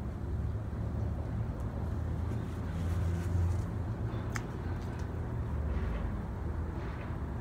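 A steady low mechanical rumble with a faint hum, and a brief high click about four and a half seconds in.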